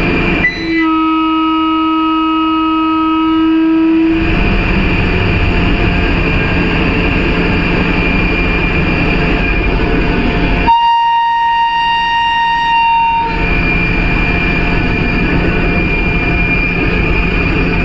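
Steady running noise in the cab of a WAP-7 electric locomotive, with the horn sounded twice as a manned level-crossing gate comes up: a low-pitched blast of about three seconds near the start, then a shorter, higher-pitched blast around the middle.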